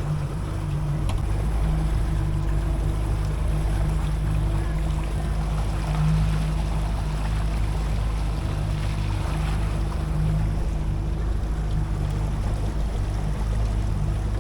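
A boat's motor running at a steady low drone, with some wind noise over it.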